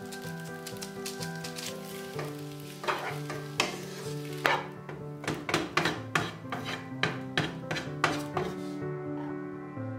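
Instant noodles sizzling in a frying pan as a spatula stirs and tosses them. From about three seconds in to near the end, the spatula scrapes and clatters against the pan about twice a second. Light background music plays throughout.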